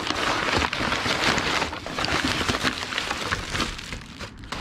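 Brown kraft packing paper crinkling and rustling as it is pulled out of a cardboard box, with the crackle of plastic wrapping as a wrapped part is lifted out; the crinkling eases off near the end.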